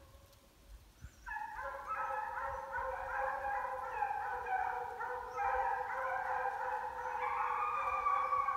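A pack of deer hounds baying together, several voices overlapping in long drawn-out calls, starting about a second in and building. The sound of hounds in full cry, running a deer hard.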